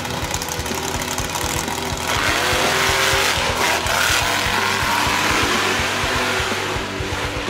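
Monster truck engine running in a rough, pulsing idle, then opening up to full throttle about two seconds in. It stays loud and revving as the truck charges over a dirt jump.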